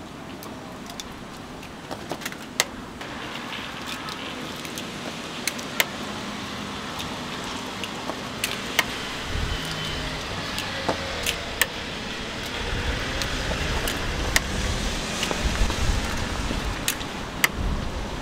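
Raw eggs being cracked one after another into small egg-bread tins: sharp, irregular clicks and taps of shell and metal. Street traffic hums underneath, with a vehicle rumbling past in the second half.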